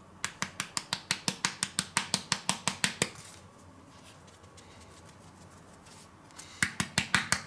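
Curry being dispensed from a spice container in quick, even clicks, about six a second, for some three seconds. The clicking pauses for about three seconds, then starts again near the end.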